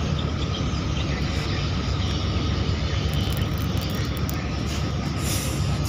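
Steady low drone of a large passenger ship's engine machinery, heard from its open deck.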